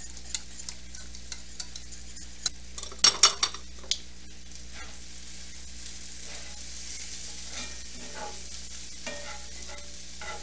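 A metal whisk clicking and scraping in a stainless saucepan of cheese sauce, with a cluster of louder metal knocks about three seconds in. From about halfway, onions sizzle steadily in oil in a cast-iron skillet as they are stirred.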